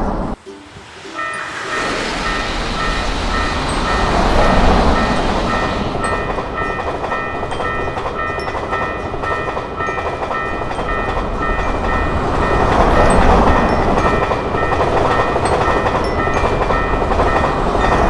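Japanese level-crossing warning bell ringing in a steady repeated pattern, starting about a second in, over the continuous rumble of a passing electric train.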